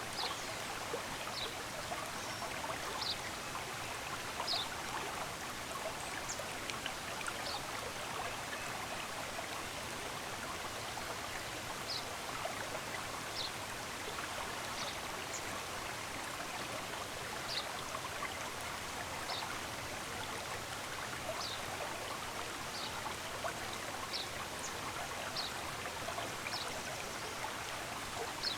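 A stream running steadily, with short, high bird chirps scattered through it, about one every second or two.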